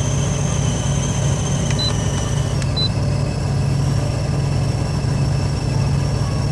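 Semi truck's engine idling steadily, heard from inside the cab, with two short high beeps about two and three seconds in.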